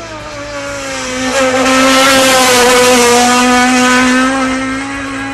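Front-wheel-drive Toyota Starlet rally car's engine held at high revs, at a near-steady pitch that dips slightly early on. It grows louder to a peak about two to three seconds in, then eases off.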